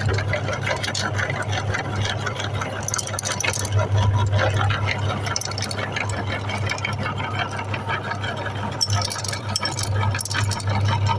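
Electric meat grinder running with a steady motor hum, with dense crackling and rattling as chocolate candy balls are crushed through it.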